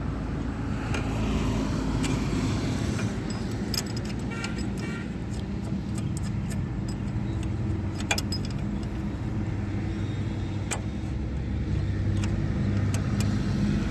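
A motor vehicle engine running steadily with a low hum, with occasional light metallic clinks.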